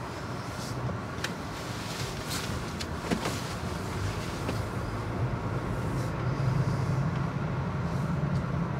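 Car cabin noise while driving slowly on a snow-covered road: a steady low engine and tyre hum, with scattered faint clicks and crackles.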